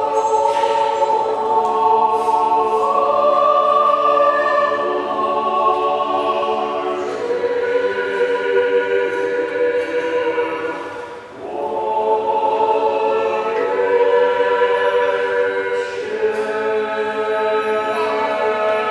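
Russian Orthodox church choir singing a liturgical chant unaccompanied, in long held chords, with a short break between phrases about eleven seconds in.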